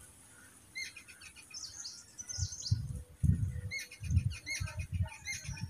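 Birds chirping: repeated short high notes with a few sweeping whistles. Under them come soft low thuds of a spatula pressing and turning thick mango sheera in a non-stick pan.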